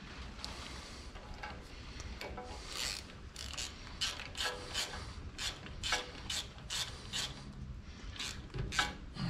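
Repeated metallic clicks and scrapes, roughly two a second, from hand work on a surface grinder under reassembly.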